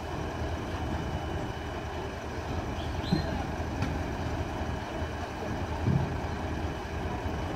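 Large vehicle's engine idling, a steady low hum, with two brief louder sounds about three and six seconds in.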